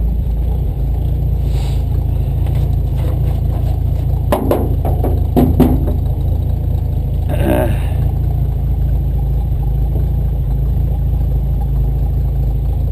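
1954 Dodge M37 Power Wagon's flathead inline-six engine idling steadily, its exhaust loose with the muffler hanging off. A few knocks and scrapes come about four to six seconds in.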